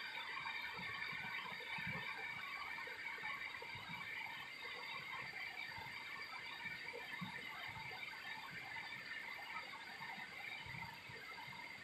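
Rain falling steadily on trees and foliage, with a steady high-pitched chorus underneath and scattered soft low knocks.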